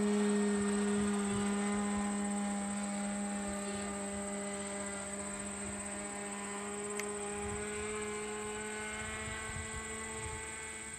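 Radio-controlled model airplane's engine droning steadily high overhead at a nearly constant pitch, slowly growing fainter.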